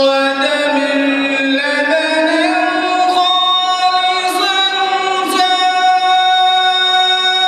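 A man's solo voice chanting a slow melodic line into a microphone, holding each note for a second or more and sliding up in pitch about two seconds in.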